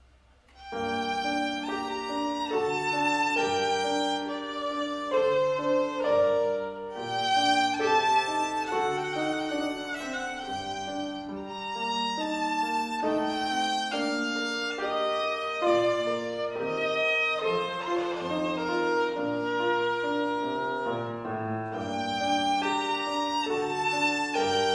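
Bowed violin playing a piece with grand piano accompaniment, the music starting about a second in after near silence.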